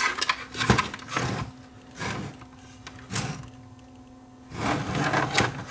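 Handling noise: the plastic housing of an LED exit sign and its power cord being moved, knocked and slid on a wooden workbench, in irregular clatters and scrapes with a busier run near the end.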